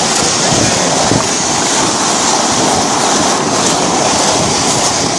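Steady loud rush of wind buffeting the microphone, mixed with water noise, even and unbroken throughout.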